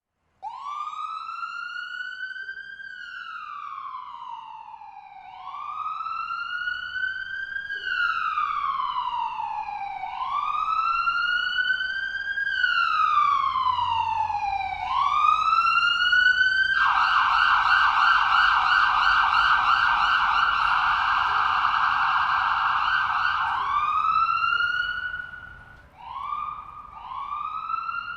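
Ambulance siren sounding a slow wail, each cycle rising for about two and a half seconds and falling for about as long, growing louder over the first half. About seventeen seconds in it switches to a fast yelp for about seven seconds, then returns to the wail, with shorter, quicker rises near the end.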